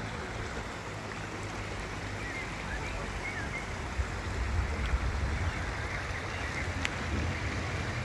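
Shallow river water running over a rocky bed: a steady rushing noise with a low rumble underneath.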